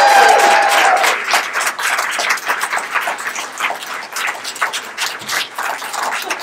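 The last held note of a live song, sung over electric guitar, dies away about a second in. A small audience then claps, a dense run of separate hand claps.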